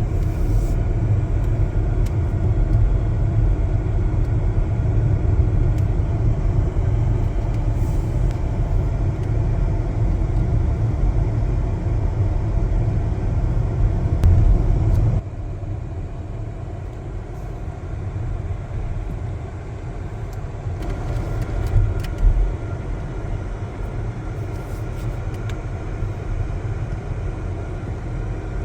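Steady road and engine rumble of a moving car. The level drops about halfway through.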